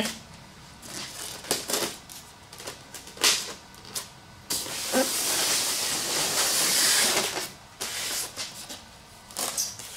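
Packing tape being cut and pulled off a foam shipping box: scattered scrapes and knocks, with one long tearing hiss lasting about three seconds in the middle.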